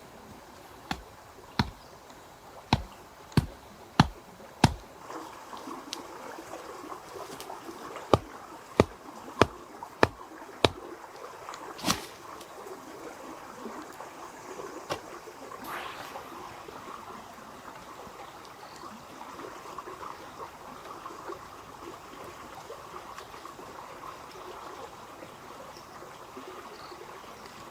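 A run of sharp knocks, about one every half second, that stops after about twelve seconds, under a steady sound of trickling water.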